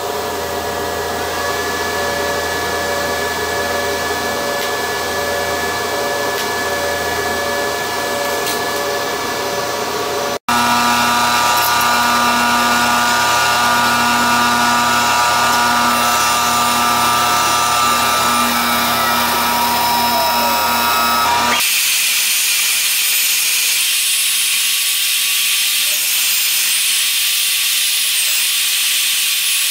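Metal-shop sounds in three parts: a TIG welding arc on stainless steel, a steady electrical hum with one tone pulsing on and off; then, about ten seconds in, a press brake's steady machine hum, again with a pulsing tone; then, past twenty seconds, a Milwaukee heavy-duty portable band saw cutting stainless tubing, a steady high-pitched hiss.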